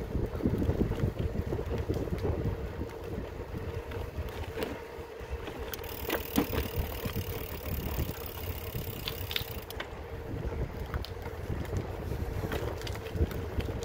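Wind buffeting the microphone as an uneven low rumble, with a faint steady hum underneath; a faint hiss joins for a few seconds midway.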